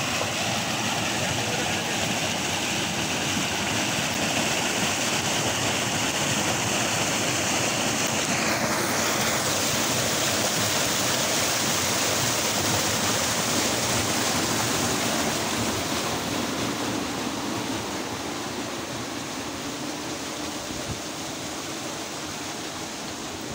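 Heavy flow of water rushing out of the discharge pipe of an electric-motor-driven FRP vertical axial flow pump and splashing into a concrete channel: a steady rushing, slightly quieter over the last few seconds.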